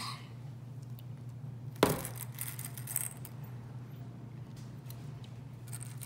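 A sharp knock about two seconds in, then faint clicking and rattling of small hard candies being handled on a plastic tray, over a steady low hum.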